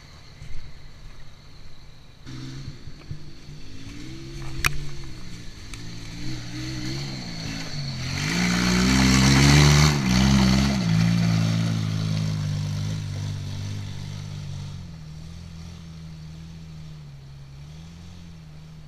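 A roll-caged off-road car's engine revving unevenly as it climbs a dirt trail, growing loudest as it passes close by with a rush of tyre and gravel noise, then fading to a steadier drone as it drives away.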